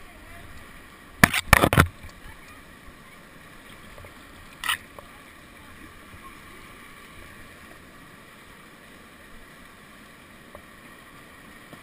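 Steady rush of whitewater from a river rapid, broken about a second in by a quick cluster of loud knocks and by one more short sharp sound near five seconds.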